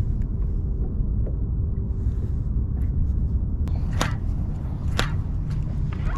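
A cast with a bait-casting rod: a sharp swish about four seconds in, then another sharp sound about a second later, over a steady low rumble.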